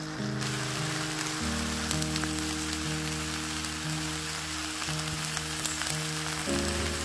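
Beef steaks sizzling on a hot griddle: a steady frying hiss with scattered crackles, getting louder about half a second in. Background music plays throughout.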